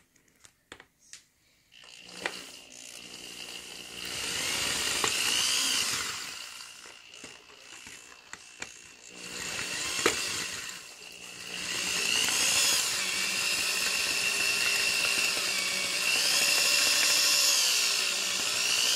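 Power drill running in several bursts after a couple of near-quiet seconds of light clicks. Its motor whine rises and falls in pitch as the speed changes, and runs almost continuously through the last part.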